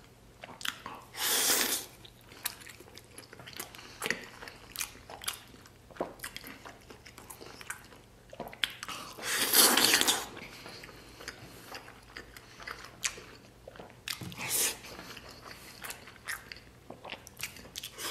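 Close-up mouth sounds of a man chewing braised pork knuckle and rice: many small wet clicks and smacks, with three longer, louder mouth noises about a second in, near the middle, and about two-thirds of the way through as more food goes into his mouth.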